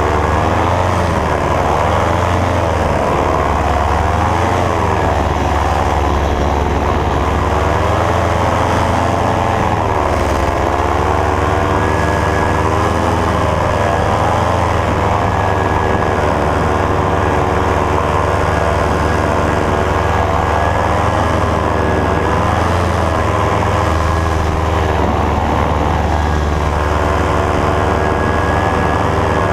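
Powered paraglider's (paramotor's) engine and propeller running, its pitch rising and falling as the throttle is eased up and down.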